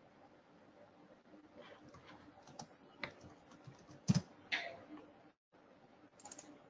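Faint typing on a computer keyboard, a scatter of soft key clicks with a few sharper clicks about three and four seconds in.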